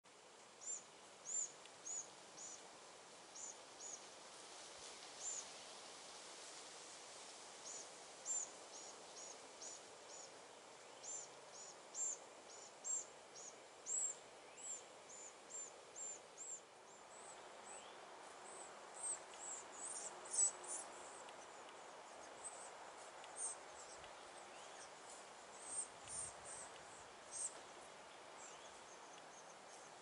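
Red-bellied woodpecker nestlings calling from the tree cavity: a long series of short, high-pitched chirps, about one or two a second, with a cluster of louder ones about two-thirds of the way through. A faint, steady outdoor hiss lies underneath.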